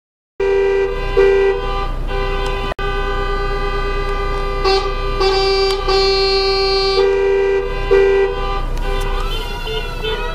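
Car horns honking together in long, sustained blasts, starting suddenly about half a second in, with other horns cutting in and out over the top: celebratory honking from a motorcade. Near the end a tone that bends up and down in pitch joins in.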